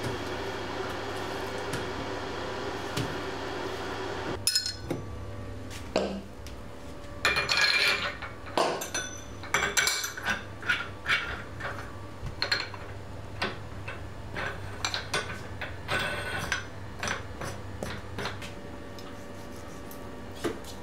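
A steady hum for about the first four seconds, then irregular metallic clinks and knocks, some briefly ringing, as a steel kebab skewer and a knife are handled against a stack of raw lamb.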